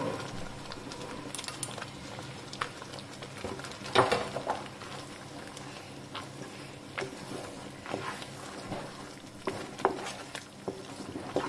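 A spoon stirring fox nuts into a simmering curry in a pan. The spoon knocks against the pan now and then, loudest about four seconds in, over a low steady sizzle.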